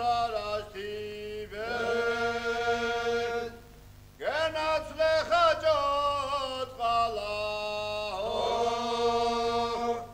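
Unaccompanied sung chant: a slow melody of long held notes that slide from one pitch to the next, breaking off briefly about three and a half seconds in.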